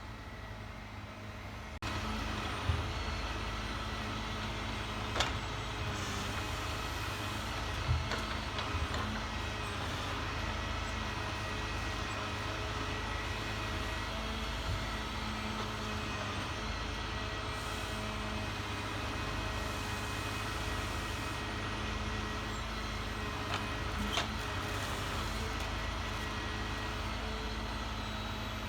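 A large engine, like that of heavy clean-up machinery or a truck, running steadily. It gets louder about two seconds in, and a few short sharp knocks sound over it.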